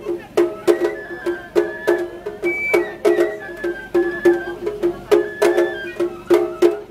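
Japanese festival music: a steady pattern of sharp, ringing strikes, about two a second, with a high wavering melody line above them.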